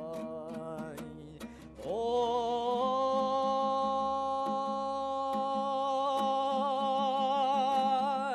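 A singer holds a Kazakh folk song note with vibrato, then about two seconds in slides up into a long, wavering high note, over steadily plucked dombra.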